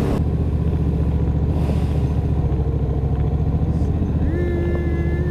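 Motorcycle engine running steadily at low revs. A rush of wind noise drops away just after the start, as if the bike has slowed to a stop. About four seconds in, a held tone starts and rises in pitch near the end.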